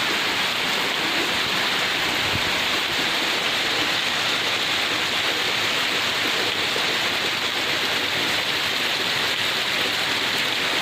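Heavy downpour: a dense, steady hiss of rain.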